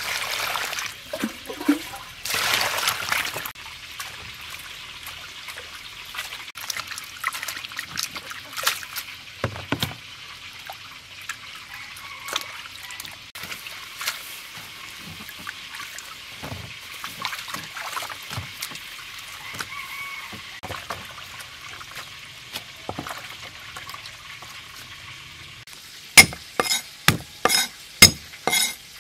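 Water poured from a plastic bowl over lettuce and cabbage leaves in a plastic basin, splashing for a few seconds. Then softer splashes, drips and rustles as the wet leaves are washed and handled. Near the end a cleaver knocks sharply on a wooden chopping board over garlic, about seven strikes at roughly two a second.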